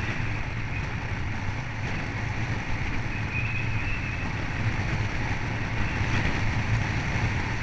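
Wind rushing over the microphone of a camera riding on a tandem bicycle as it descends at speed: a steady low rumble.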